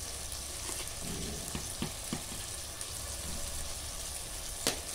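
Steady hiss of a lit gas stove burner with a low hum under it, and a few light taps of a plastic spoon against a clay cooking pot as salt is spooned in, the sharpest near the end.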